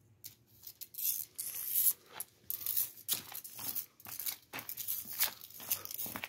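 Irregular bursts of rustling, scraping noise, several a second, from a hand-held camera being swung about and rubbed while filming on the move.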